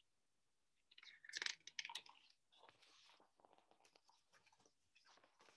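Faint rustling and crinkling of a large picture book's paper pages as the book is lowered and handled, mostly in a short cluster about a second in, then near silence.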